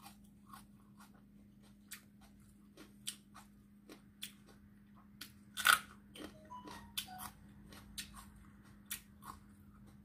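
Chewing and biting a raw green chili pepper: crisp crunches and wet mouth clicks at irregular intervals, with one louder crunch a little past halfway.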